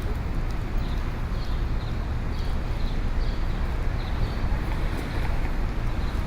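City street ambience: a steady low rumble of traffic, with faint short high ticks recurring irregularly over it.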